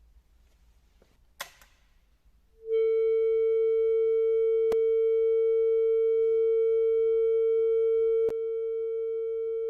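Homemade thermoacoustic heat engine, heated by a cigarette lighter filament, starting to sing: a sharp click, then about a second later a loud steady pure tone that comes on within a fraction of a second and holds. Near the end another click and a slight drop in loudness, the tone carrying on.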